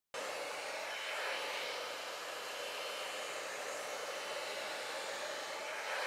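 T3 Micro AireBrush Duo hair dryer brush running, a steady rush of blown air with a thin high whine. It cuts in abruptly at the start.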